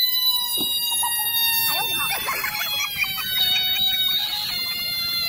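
A large frog giving a long, shrill distress scream after being pawed by a cat. The steady high cry holds for about three seconds, and a second, slightly lower cry follows near the end.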